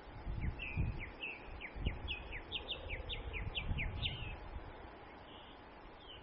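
A bird singing a quick run of short downslurred chirps, about three a second, that stops about four seconds in. Low gusts of wind rumble on the microphone underneath.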